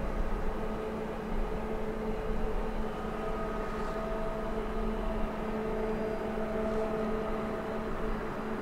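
2TE116 twin-section diesel locomotive's 16-cylinder diesel engines droning steadily under load as it hauls a freight train up a grade, a hum of several held tones over a low rumble.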